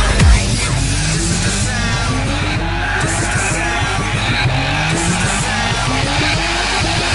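Electronic dance music. The kick drum stops about half a second in, leaving a build-up of repeated rising synth sweeps over a steady low bass.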